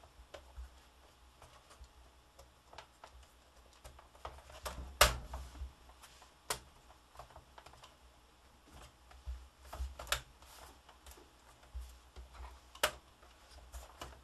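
Scattered plastic clicks and taps from a Dell Latitude D610 laptop as the bezel strip above its keyboard is pressed and snapped into place, with fingers pressing on the keys; a few sharper snaps stand out, the loudest about five seconds in.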